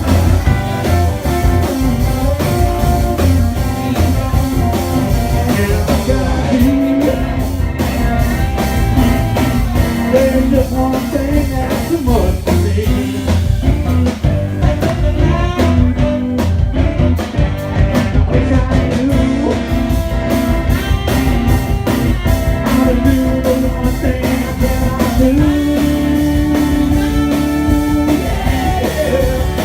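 A band playing blues-rock, with a singer, guitar and drum kit and a steady beat.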